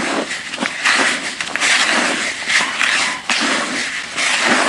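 Fine-ground dry fishing groundbait being stirred and rubbed together by hand in a plastic bucket: an uneven rustling and scraping of dry crumbs.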